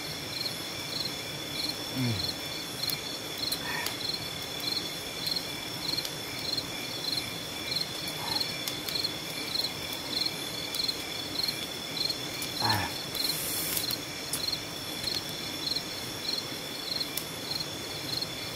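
Night insect chorus: several steady high-pitched buzzes, with a high chirp pulsing about three times a second.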